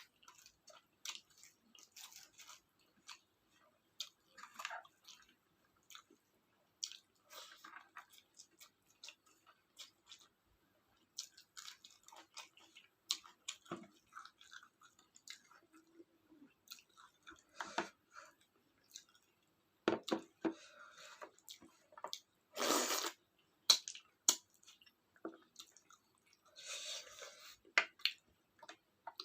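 Close-up chewing and wet mouth sounds of someone eating rice with curry: scattered smacks and small clicks, with a louder burst about two-thirds of the way through.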